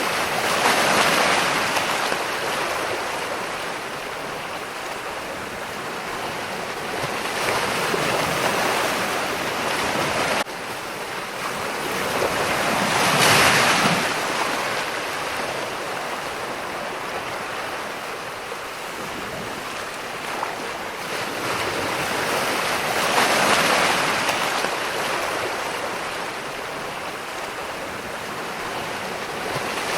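Ocean surf: waves breaking and washing in, the rushing noise swelling and fading in slow surges every several seconds, with four louder crests. About ten seconds in the sound changes abruptly, like a splice in the recording.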